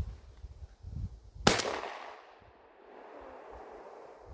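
A single 12-gauge shot from a Beretta A300 Outlander semi-automatic shotgun, fired with a hunting cartridge, about a second and a half in. The sharp report is followed by an echo that dies away over about a second.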